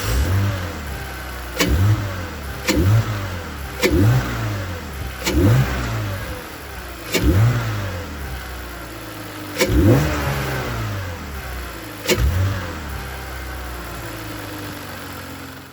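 BMW E46 M54B22 2.2-litre inline-six revved in short throttle blips from idle about eight times, each rev climbing sharply and falling back to idle, heard through a cold air intake with an open cone filter.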